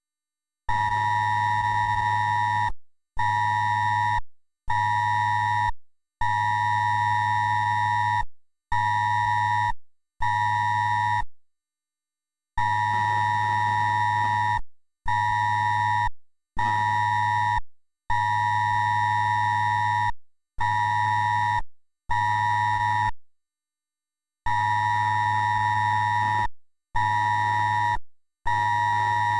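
Electronic alert tone, a buzzy pitch near 1 kHz with overtones and a low hum under it, beeping in a repeating pattern: one long beep of about two seconds, then two shorter ones of about a second each, with short pauses between.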